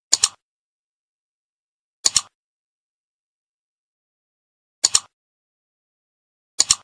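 Mouse-click sound effect, four quick double clicks spaced about two to three seconds apart, as an animated cursor clicks the like, subscribe and bell buttons.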